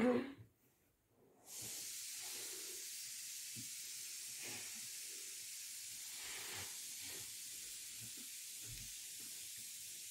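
A brief woman's voice at the very start, then a steady high hiss that sets in about a second and a half in and holds.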